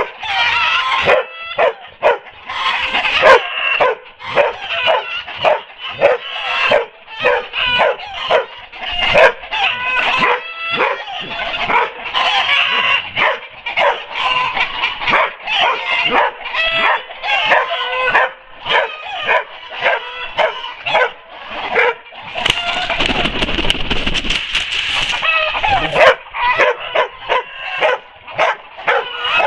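Dog barking and yipping rapidly and without pause, about two barks a second. About three-quarters of the way through there are a few seconds of rustling noise.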